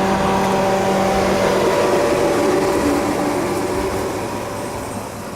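A motor vehicle's engine running with a steady hum, part of it dropping in pitch midway, easing off in level near the end.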